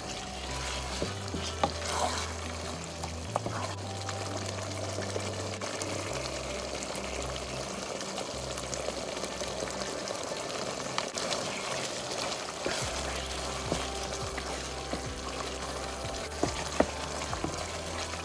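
Thick tomato meat sauce sizzling and bubbling in a metal pot while a wooden spoon stirs it, with scattered light knocks of the spoon against the pot. Soft background music with low held bass notes plays underneath.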